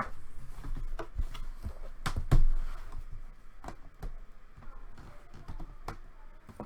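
Scattered clicks and knocks from objects being handled on a table, with one heavier thump a little over two seconds in.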